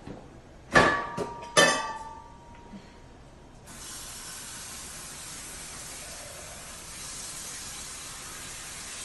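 Metal cookware clanks twice, a second or so in and again just after, each with a short metallic ring. Then, a little under four seconds in, a kitchen faucet starts running steadily into a pot in the sink.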